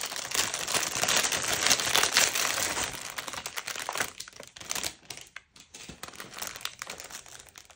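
Clear plastic bag crinkling as it is handled, a dense crackle for the first few seconds that thins to scattered crinkles after that.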